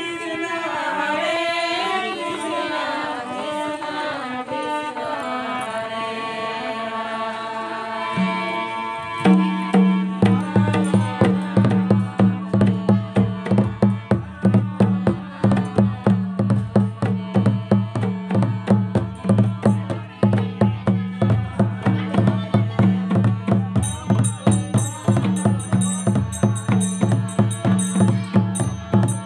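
Devotional singing over a harmonium; about nine seconds in, a drum comes in with a steady beat of about two strokes a second, and a metallic jingling joins near the end.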